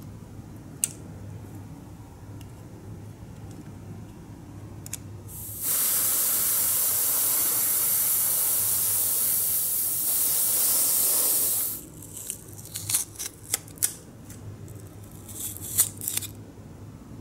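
Airbrush spraying paint, a steady hiss starting about five and a half seconds in and lasting about six seconds. After it stops there is a run of small clicks and taps.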